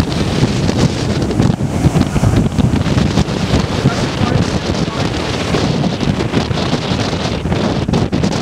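Strong storm wind buffeting the microphone over heavy surf breaking on the shore, the gusts driven by Hurricane Sandy's outer winds.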